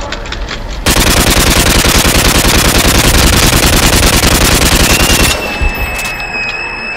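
Rapid automatic gunfire, an unbroken stream of shots that starts abruptly about a second in and cuts off after about four seconds. It is followed by a high, steady tone that sinks slightly in pitch.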